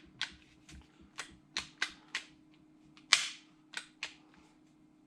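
Slide of a Glock 17 Elite Force gas blowback airsoft pistol being racked by hand several times, a string of sharp clacks as it is pulled back and snaps forward, the loudest about three seconds in. The racking works fresh lubrication into the slide rails.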